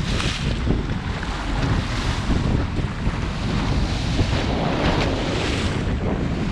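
Wind buffeting the microphone over water rushing and splashing along the hull of a motorboat under way. The spray hisses louder just at the start and again around five seconds in.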